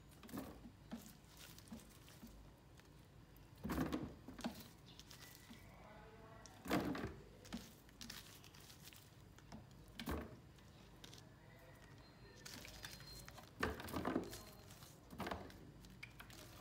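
Handfuls of pineapple peels dropped into a 10-litre plastic jar, landing with soft thuds and rustles in irregular bursts every second or few.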